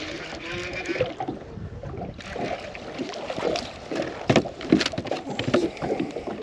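Irregular knocks and clicks in a fishing boat while a hooked bass is fought and brought in.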